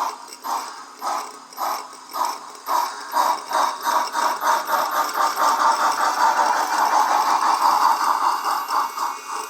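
Sound decoder of a Lenz O gauge DB Class 86 model steam locomotive playing exhaust chuffs through its speaker, about two a second at first and quickening until they run together as the locomotive picks up speed.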